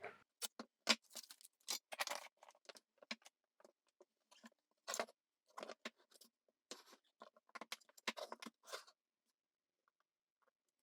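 Faint, scattered clicks and light taps of small tools and electronic parts being handled on a circuit board, stopping about nine seconds in.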